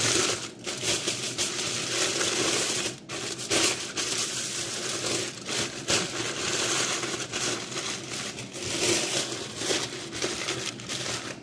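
Aluminium foil crinkling and crumpling as it is folded and pressed by hand around a stuffed fish, the crackle coming and going as the hands work the foil.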